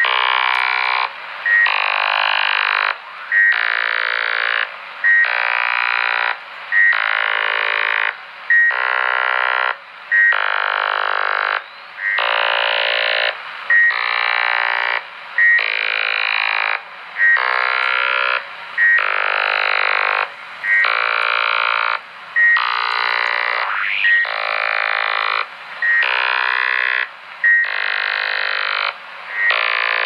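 Unidentified repeating signal received on a President HR2510 10-meter radio in lower sideband: pulses about a second and a half long with a short break between them, repeating roughly every 1.8 seconds, a pitched, chirping sound like musical notes.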